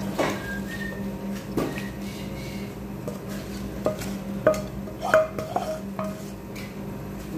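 Wooden spatula scraping and knocking against a frying pan as shrimp in sauce are pushed out into a ceramic bowl. A few short ringing clinks come between about four and six seconds in, over a steady low hum.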